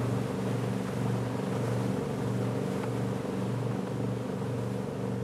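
Speedboat engine running at speed, a steady low drone, with the rush of water and wind as the boat moves.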